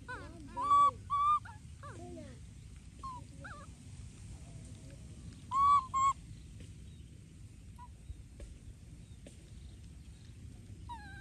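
Monkey giving short, high, arching calls: a loud pair about a second in, a few softer ones after, and another loud pair near six seconds, over a steady low rumble.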